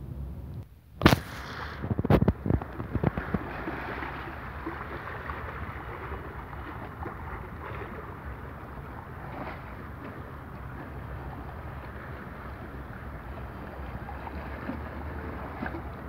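Small sea waves lapping and sloshing against shoreline rocks, a steady wash of water. About one to three seconds in, a few loud sharp knocks or splashes stand out. A low rumble of wind on the microphone runs underneath.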